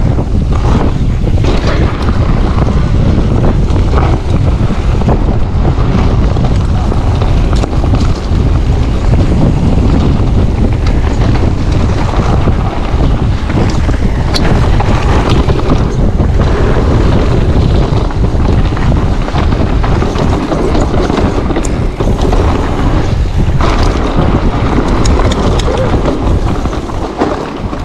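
Heavy wind buffeting on the microphone of an action camera riding along on a fast e-mountain-bike descent. Under it are a continuous rumble of tyres on the dirt trail and scattered knocks and rattles from the bike over bumps. It eases slightly near the end.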